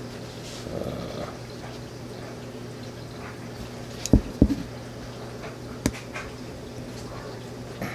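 Small metal parts of a Sig P320 trigger control unit being handled while the trigger spring is worked loose: two low knocks about four seconds in and a sharp click near six seconds, over a steady low hum.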